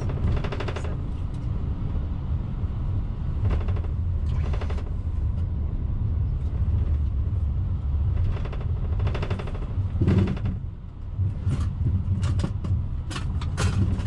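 Steady low rumble of an Airbus A380 taxiing, heard on the flight deck, with short crackly bursts of noise now and then.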